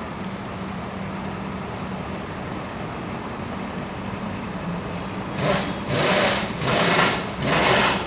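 A motor running steadily with a constant low hum. From about five seconds in, loud bursts of noise come and go about once a second over it.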